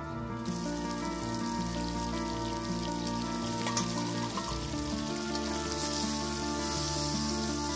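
Food sizzling as it fries in oil in a cooking pot, a steady hiss that swells about six seconds in, under background music of slow held notes.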